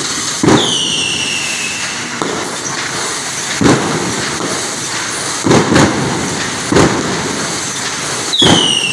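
Wire mesh production machinery running with a steady noise, broken by several sharp bangs at uneven intervals, about a second or two apart. Two of the bangs, one near the start and one near the end, are followed by a falling high whine.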